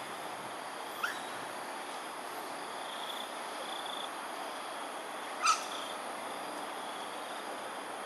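Smooth-coated otters giving two short, high squeaky chirps that sweep upward in pitch, about four seconds apart, the second louder, over a steady background hiss.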